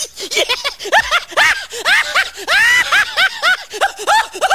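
A high-pitched laugh sound effect: a quick, unbroken run of 'ha' notes, about four a second, each rising then falling in pitch.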